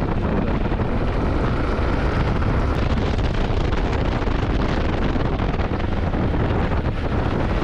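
Steady wind rush buffeting a motorcycle rider's camera microphone while riding, with engine and road noise underneath.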